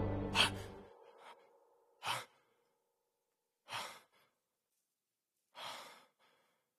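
A man's heavy, sighing breaths, three of them a little under two seconds apart, with silence between. A music cue dies away during the first second.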